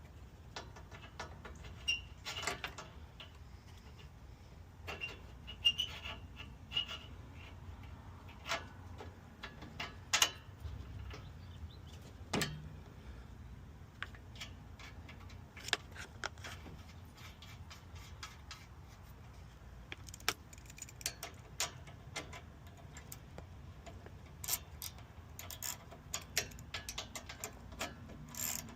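Hand tools and metal fittings handled during truck A/C work: scattered metallic clinks, taps and clicks at irregular intervals, a few with a short high ring.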